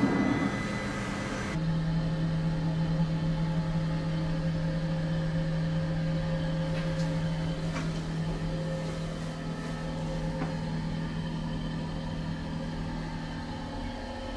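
Steady low electrical hum inside a train's toilet cubicle, starting suddenly about a second and a half in and stopping near the end, over the faint background noise of the carriage.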